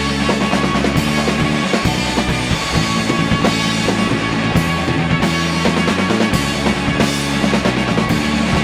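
Rock band playing an instrumental passage live, with guitars and a drum kit keeping a steady beat and no singing.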